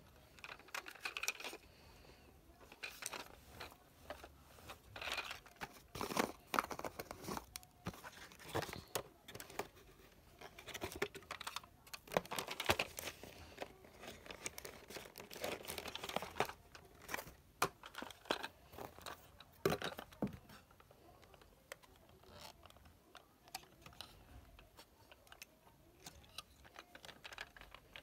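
Hands handling a die-cast toy car and its cardboard box: irregular plastic clicks and knocks with bursts of rustling and crinkling, thinning to scattered light clicks over the last several seconds.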